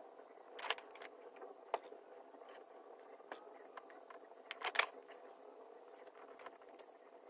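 Faint clicks and taps of make-up being handled at a vanity: a compact, brush and pencil picked up and set down. The clearest come about two-thirds of a second in and just before five seconds in.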